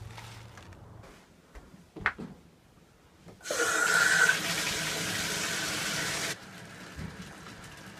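Bathtub faucet turned on, after a few faint scrapes and a sharp knock: water rushes out of the spout loudly with a brief high whine as the valve opens, then about three seconds later drops to a quieter steady run into the tub.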